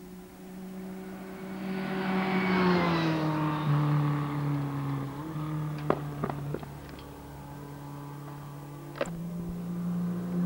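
Formula 3 racing car's four-cylinder engine running steadily, its note swelling louder about two seconds in, then dropping in pitch a little before the middle. A few sharp clicks are heard around six seconds in and once more near nine seconds in.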